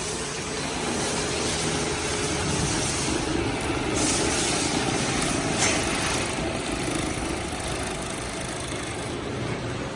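Mattress-making machinery running steadily: a dense mechanical clatter over a low hum, with short bursts of hiss about four and five-and-a-half seconds in.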